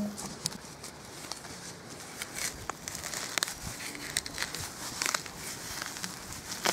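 Rustling and crackling of grass, dry stems and soil as weeds are worked loose and pulled out, with scattered sharp snaps and clicks.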